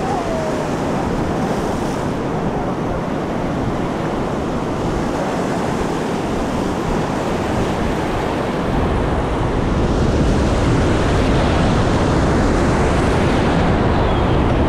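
Ocean surf washing on a rocky shore, with wind on the microphone; the noise gets louder and fuller about nine seconds in.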